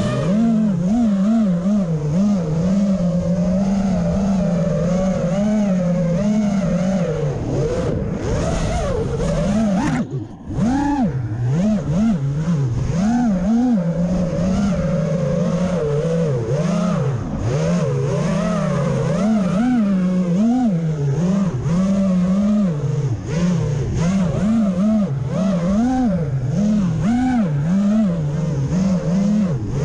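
Motors of a small FPV quadcopter running in flight, their whine rising and falling constantly with the throttle, with a brief drop about ten seconds in.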